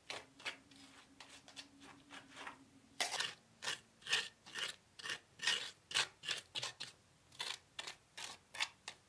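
A pointed steel trowel scraping and spreading wet, gritty sand paste over end-grain wood bricks against stone, in short repeated strokes. The strokes are faint for the first few seconds, then sharper and louder, about two a second.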